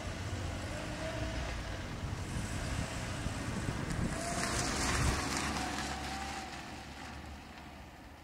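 Car driving along a street and pulling up, with engine and tyre noise. The noise swells to its loudest about five seconds in, then dies down as the car slows to a stop.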